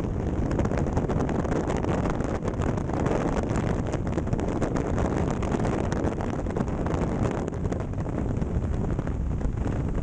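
Freefall wind blasting the camera's microphone during a tandem skydive: a loud, steady rush with rapid buffeting.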